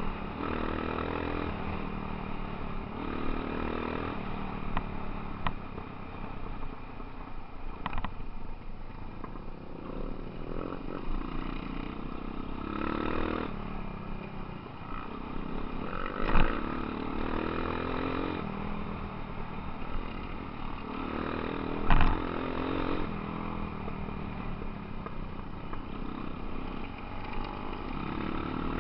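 Off-road motorcycle engine running over a rough dirt trail, the rider opening and closing the throttle so the engine revs up and drops back every few seconds. Two sharp knocks stand out, one about halfway through and one about two-thirds of the way in.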